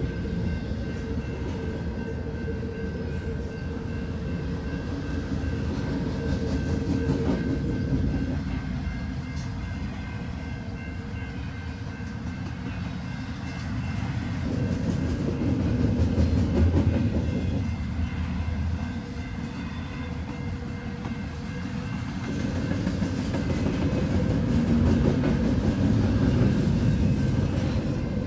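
Double-stack intermodal freight train's well cars rolling past at speed: steady wheel-on-rail rumble with clickety-clack, swelling louder and softer a few times as the cars go by, with a faint steady ringing tone above it.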